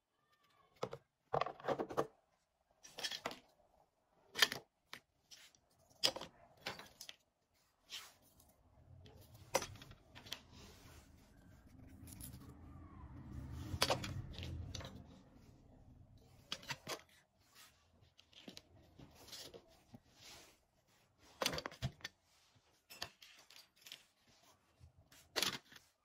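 Plastic vacuum cleaner housing parts being handled and set down: scattered light clicks and knocks of hard plastic, with a longer rustle about halfway through.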